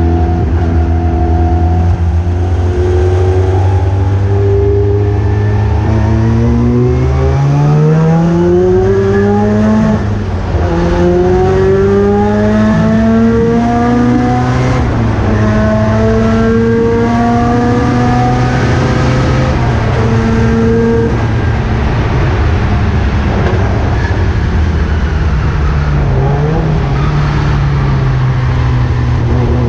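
1979 Mazda RX-7 race car's rotary engine pulling hard under racing load. The revs climb from about six seconds in, break at a gear change just past ten seconds, climb again, then drop about twenty-one seconds in and hold steady.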